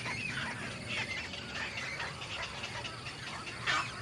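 Small birds chirping in quick, repeated short calls, with one louder call near the end.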